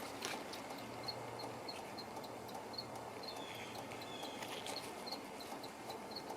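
Faint insect chirping, short high chirps repeating two or three times a second, over a steady low background hum.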